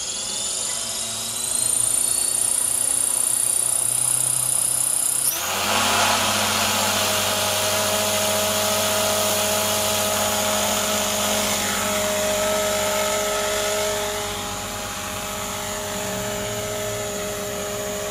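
Thunder Tiger Mini Titan electric RC helicopter spooling up on the ground. A high motor whine rises in pitch over the first two seconds and then holds. About five seconds in the sound switches suddenly to a steady, fuller rotor hum with blade swish, which eases slightly about fourteen seconds in.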